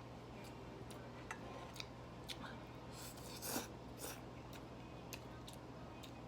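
Faint eating sounds: scattered small clicks from chewing and utensils, with a louder short crunch about three and a half seconds in. A low steady hum runs underneath.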